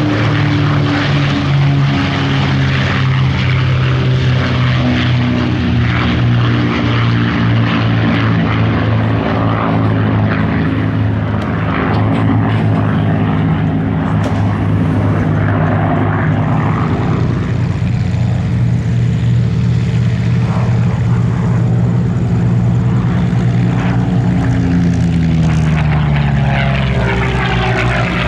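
Supermarine Spitfires' Rolls-Royce V12 piston engines, a Griffon and two Merlins, droning together in low formation flight. Several engine pitches sound at once and slowly glide down and up as the aircraft pass.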